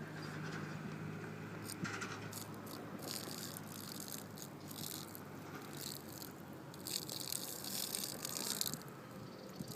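Water splashing and rattling out of a small RC boat's flooded hull as the boat is tipped and shaken, in irregular bursts that are heaviest about three quarters of the way in.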